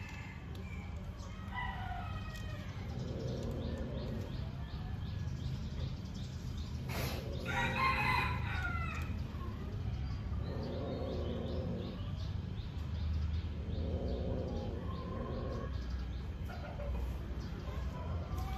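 Animal calls: a few short, low pitched calls spaced a few seconds apart, and one louder drawn-out call about eight seconds in, over a steady low hum.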